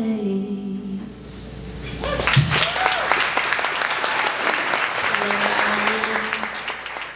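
The last sung note and guitar ring out and fade, then audience applause breaks out about two seconds in and carries on, fading near the end.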